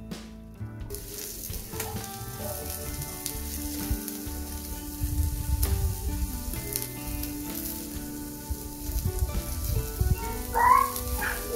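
Cubed-meat kebab skewers sizzling steadily on a gas lava-stone grill; the hiss comes in about a second in. Near the end there is a brief, louder metallic scrape as a skewer is turned.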